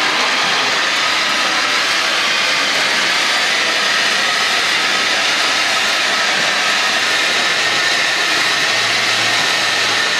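Bicycle-driven blender running steadily, its blade spinning through a smoothie mix as the rider pedals: a loud, even whir.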